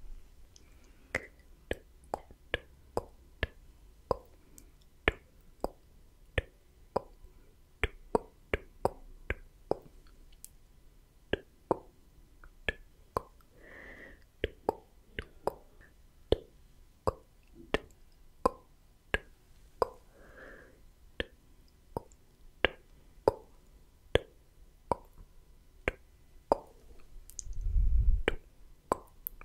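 Slow ASMR mouth sounds made right at the microphone: sharp, separate tongue clicks and wet lip pops, about one or two a second, with a couple of soft breathy sounds midway. Near the end a puff of breath blown onto the microphone gives a loud, low rumble.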